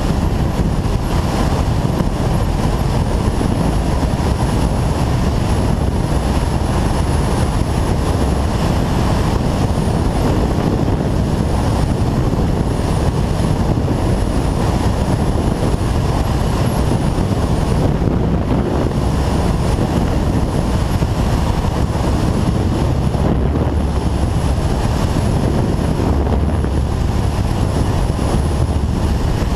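Steady rush of wind and road noise from a Kawasaki ZZR 1400 motorcycle being ridden at speed, with heavy low wind buffeting on the microphone and no clear engine note standing out.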